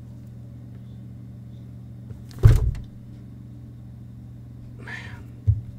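A steady low hum, broken by a single loud thump about two and a half seconds in, with a short hiss and a smaller thud near the end.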